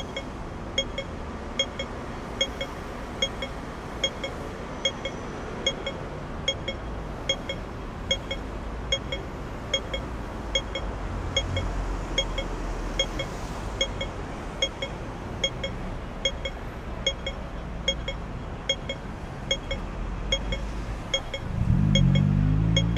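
Hong Kong pedestrian-crossing audible signal ticking steadily at its slow pace, about once a second, the signal to wait, over a low traffic rumble. Near the end a vehicle's engine revs up and is the loudest sound.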